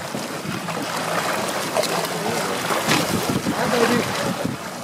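Water splashing and churning against a boat's hull as a hooked shark thrashes at the side, with wind on the microphone.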